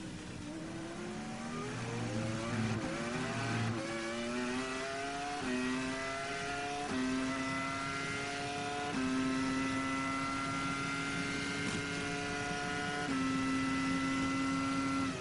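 The 3.0-litre V10 of a 2001 Sauber C20 Formula One car at full throttle, heard from the onboard camera. Its pitch climbs through the gears at about 17,300 rpm, with five quick upshifts, each a short drop in pitch, and the gaps between them grow longer in the higher gears.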